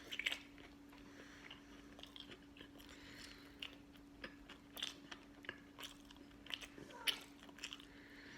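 A person chewing fried fast food with the mouth close to the microphone: short crunchy bites and wet mouth clicks come at irregular moments. A faint steady hum sits underneath.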